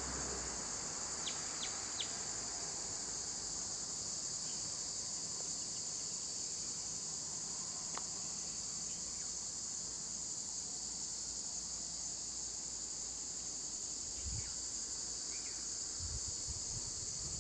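A steady, high-pitched drone of insects chirring in roadside scrub, with a few short bird chirps near the start and some low bumps near the end.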